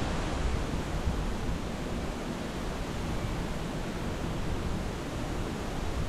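Strong wind rushing steadily through trees and brush: an even hiss, with less of the low microphone buffeting than in the surrounding gusts.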